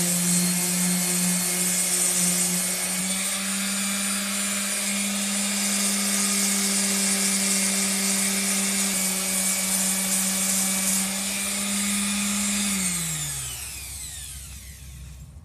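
Small electric sander running against a rusty steel machete blade: a steady motor hum under a loud high hiss of abrasion. About 13 seconds in it is switched off, and the hum falls in pitch as the motor winds down.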